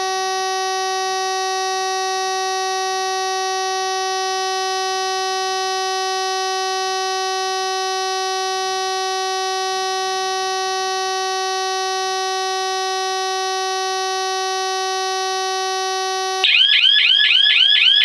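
Logic 4 keyswitch burglar alarm panel's entry-delay buzzer holding one steady tone while the entry delay counts down. About sixteen seconds in, the delay runs out and the internal sounder goes into full alarm: much louder, a fast warble of about six rising chirps a second.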